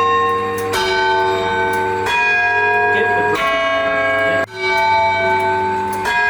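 Fremantle Town Hall clock tower bells chiming a tune, driven by the clock's restored chiming mechanism: about five strokes, one bell struck every second and a third or so at a different pitch each time, each note ringing on into the next.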